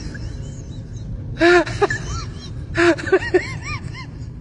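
Puppy whimpering: short high-pitched cries that rise and fall, a few about one and a half seconds in and a longer run of them near the three-second mark.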